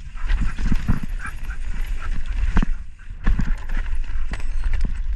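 2023 Pivot Switchblade mountain bike rolling over a wet, rocky trail: irregular knocks and rattles from the tyres and bike over the rocks, over a steady low rumble of wind on the microphone.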